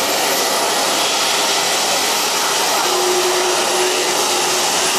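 Boeing 737 airliner's CFM56 turbofan engines at taxi idle as it rolls in to the stand: a loud, steady rushing hiss with a thin high whine.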